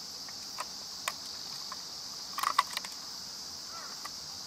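Small plastic clicks and knocks as a toy ambulance is handled, with a cluster of louder clicks about halfway through as its rear hatch door is swung open. Insects chirr steadily and high underneath.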